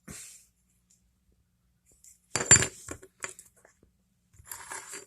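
Metal motorized-bicycle parts clinking and clattering as they are handled and set down. The loudest clatter, with a short ring, comes about two and a half seconds in, followed by smaller clinks and another cluster of clinks near the end.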